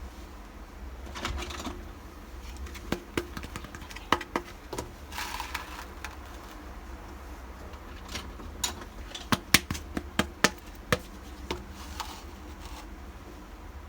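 Small pieces of a miniature toy kitchen set being handled and set down: a string of sharp clicks and taps, with two short rustling scrapes, the taps coming thicker in the second half.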